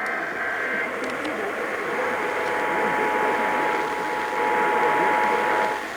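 Emergency Alert System test on a broadcast: the tail of a digital header burst stops within the first second, and about two seconds in the steady two-note EAS attention signal begins and holds, all over a rasping hiss.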